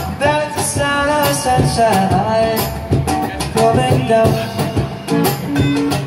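Live band music: strummed acoustic guitar and a drum kit keeping a steady beat, with a man singing over the first half.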